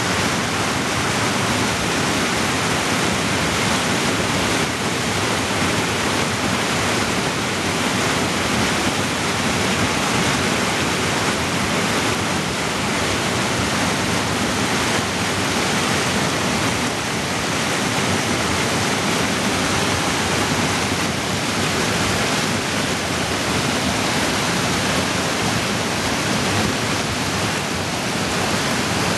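Mountain creek rushing as whitewater over boulders and small drops: a steady, unbroken rush of water noise.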